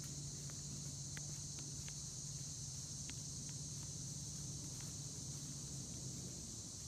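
Steady high-pitched drone of insects in the woods, with a handful of faint, scattered ticks and snaps.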